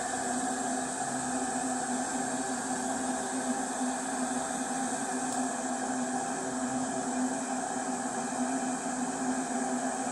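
A 1.8-litre stainless steel electric kettle heating about a litre of water, giving a steady, even rushing noise as the water nears the boil.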